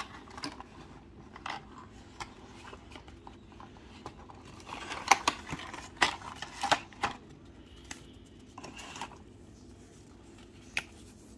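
Cardboard packaging and a paper leaflet being handled: irregular scrapes, rustles and sharp clicks, busiest from about five to seven seconds in, with one sharp click near the end.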